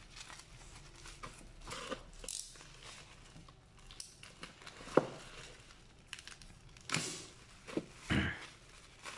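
Plastic bubble-wrap mailer being cut and pulled open by hand: crinkling and tape tearing in short bursts, with scattered clicks and one sharp click about halfway through.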